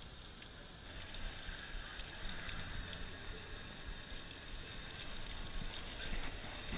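Water spraying steadily from a hose to wash down a downhill mountain bike, a continuous hiss of spray.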